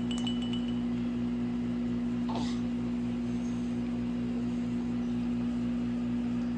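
A steady low mechanical hum with a fast, even pulsing beneath it, and a brief faint sound about two and a half seconds in.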